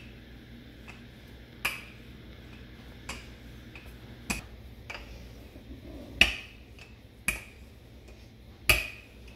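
Wooden rolling pin knocking with sharp clicks as it is worked back and forth over pie-crust dough on a countertop, about six clicks at one-to-one-and-a-half-second intervals.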